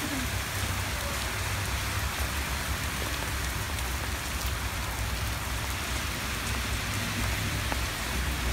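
Heavy rain pouring steadily onto pavement and a flooded road, with cars splashing through the standing water.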